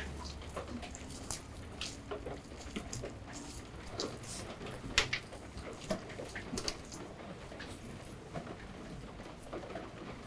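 Small wet crackles and clicks of gloved hands peeling the skin off a whole smoked sturgeon, with one sharper click about five seconds in.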